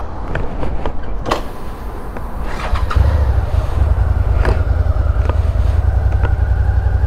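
A few light clicks, then a Suzuki Gladius 650's V-twin engine starts about three seconds in and settles into a steady, evenly pulsing idle.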